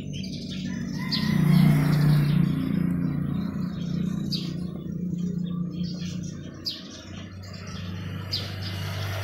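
A motorcycle engine idling as a low steady hum that swells about a second and a half in and settles to a lower pitch around seven seconds, with small birds chirping over it.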